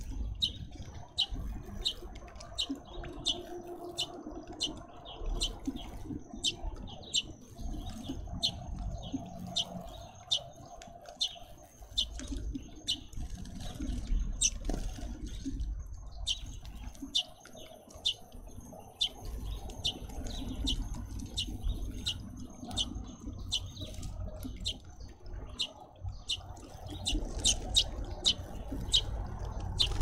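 Small birds chirping: short high chirps repeated about twice a second, on and on, over a low background rumble and a faint steady high whine.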